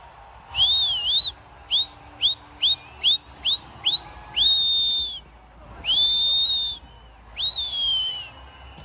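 A person whistling loudly: a long whistle that dips and rises, a quick run of six short upward whistles, then three longer whistles, the last one falling away.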